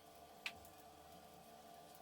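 Near silence: faint steady room hum, with one short sharp click about half a second in.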